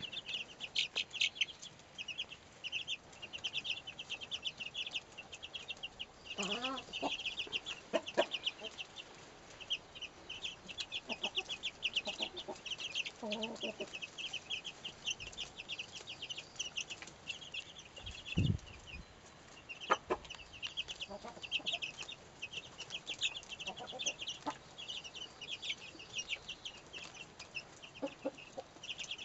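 A brood of Faverolles chicks about two and a half weeks old peeping continuously in a dense run of rapid, high-pitched peeps. A mother hen clucks low a few times, and there is one dull thump around the middle.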